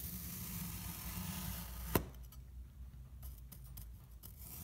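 A steel santoku knife sinks through a block of kinetic sand with a grainy, crunchy hiss that builds for about two seconds and ends in one sharp tap as the blade meets the cutting surface. A few faint crackles follow as the cut slice settles.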